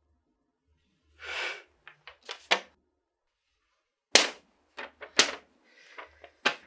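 A sheet of paper being handled: a brief rustle about a second in, then a string of sharp snaps of the paper, the loudest about four and five seconds in.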